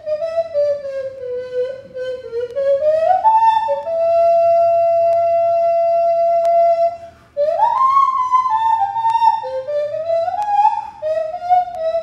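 Nose flute playing a melody in a pure, whistle-like tone: a descending phrase, a climb, and a long held note. The held note breaks off about seven seconds in, then a quick upward slide leads into higher notes that step back down.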